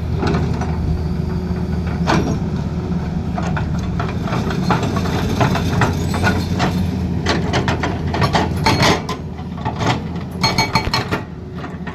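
Excavator's diesel engine running steadily, with irregular metallic clanks and knocks over it. The clanks grow busier in the second half, and a few ring out near the end.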